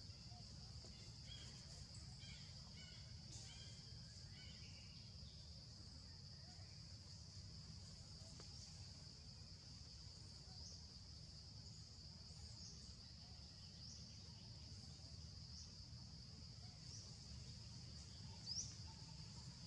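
Faint outdoor ambience: a steady, high insect drone over a low rumble. From about halfway through, a bird gives short rising chirps every second or so; the loudest comes near the end.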